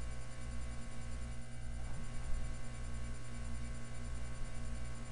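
Room tone: a steady low electrical hum with hiss, and no distinct event.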